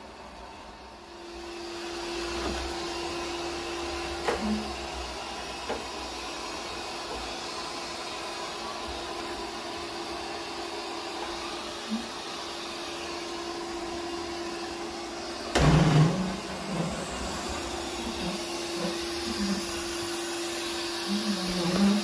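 Realme TechLife robot vacuum running: a steady whir of its suction motor and brushes with a constant hum, coming up about a second in. A few short knocks break in, the loudest a little past two-thirds of the way through.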